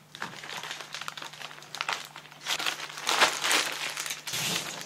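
Wax paper being peeled off the underside of a baked chocolate sponge cake, crinkling and rustling in irregular bursts, loudest around three seconds in.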